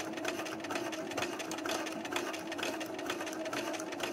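Sewing machine stitching a patch onto denim: a steady motor hum with rapid, even needle clicks.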